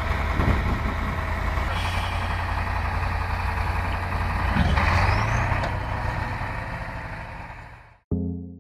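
Heavy diesel engines of trucks and earth-moving machines running steadily, with a short rising whine about five seconds in. The engine sound fades out near the end, and a few music notes start.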